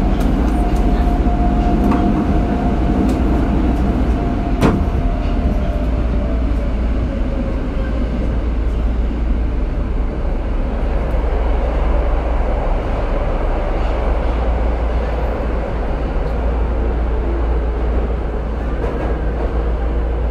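Inside a Tokyo Metro 02 series subway car on the move: a steady rumble of wheels on rail under a motor whine that slides slowly down in pitch as the train slows. A sharp click comes about two seconds in and another near five seconds.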